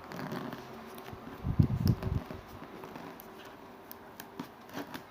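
Handling noise from opening the speaker's cardboard box: scattered clicks and rustling, with a cluster of heavy low thumps about a second and a half in, over a faint steady hum.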